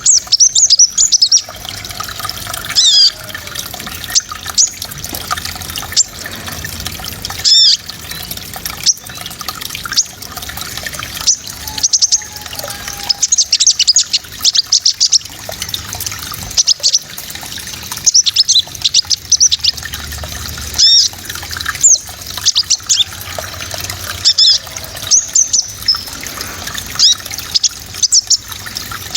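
Small songbird singing a rapid 'shooting' song: bursts of sharp, high-pitched chirps and quick down-sweeping notes, repeated throughout. A steady trickle of running water sounds beneath.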